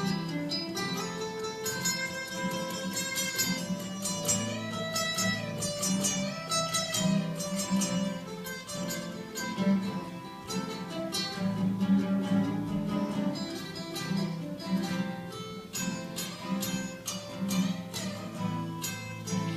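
Instrumental music led by plucked acoustic guitar, with a steady run of picked notes.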